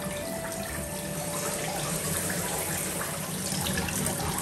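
Water running from a hose into a bunch of water balloons as they fill, spilling over and splashing into the basin below; a steady rush of water.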